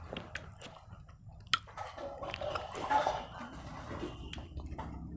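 Close-miked chewing of a mouthful of food: soft, wet mouth sounds with scattered small clicks, one sharper click about one and a half seconds in.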